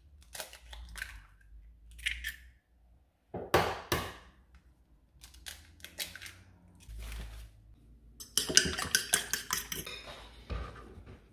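Eggs being cracked over a ceramic bowl: a few sharp taps and shell cracks with pauses between them. Near the end a fork beats the eggs, clinking rapidly against the bowl for about two seconds.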